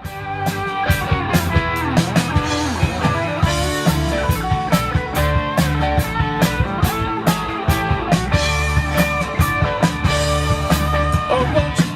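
Rock band playing an instrumental break: electric guitar with bending lead notes over bass and a steady drum beat, coming back in at full level right after a brief stop.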